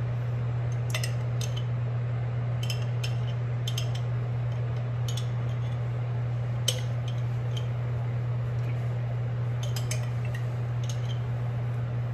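Small glass seasoning jar shaken and tapped over a frying pan, giving irregular sharp clicks and rattles in little clusters, over a steady low hum.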